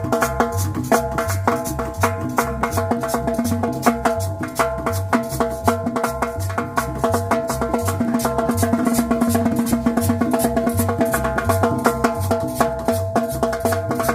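A tropical dance band plays an instrumental passage: a bouncing bass line and drums under steady hand percussion such as maracas, with sustained chords held above.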